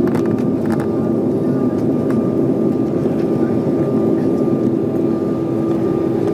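Steady cabin hum of an Embraer 190 taxiing, its two GE CF34 turbofans running at low taxi power, with a steady tone through it. A few faint clicks come in the first couple of seconds.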